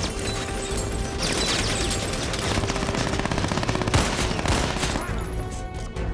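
Automatic gunfire in a film shootout: rapid shots with heavier booming hits about a second in and again about four seconds in, thinning out near the end.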